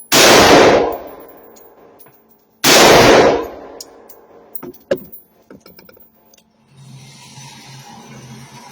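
Two gunshots from a 7.5-inch AR-15 pistol chambered in 5.56, about two and a half seconds apart, each ringing out for about a second. A few light clinks follow, then a low steady hum starts near the end.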